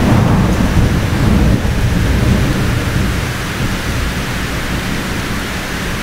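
A thunderstorm: a low rumble of thunder dies away over the first few seconds, over a steady hiss of heavy rain.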